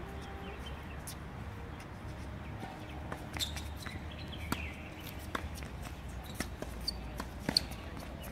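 Tennis ball being struck by rackets and bouncing on a hard court during a rally: a string of sharp pops roughly a second apart, the loudest near the end, over a steady low background rumble.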